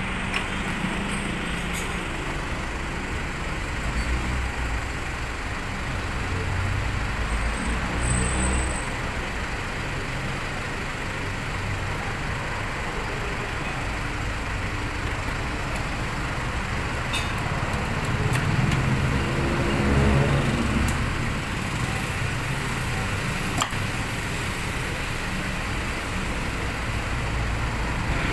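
Steady rumble of motor vehicle engine and traffic noise, with one engine sound swelling and fading about two-thirds of the way through. A few light clicks sit on top of it.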